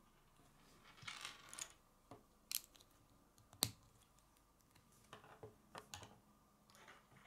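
K'nex plastic rods and connectors clicking and rattling as they are handled and snapped together by hand, with one sharp snap about halfway through. A few lighter clicks and taps follow.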